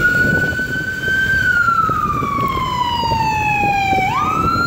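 Ambulance siren on its wail setting: one long tone that falls slowly for about three seconds, then sweeps quickly back up near the end, over a steady low rush of noise.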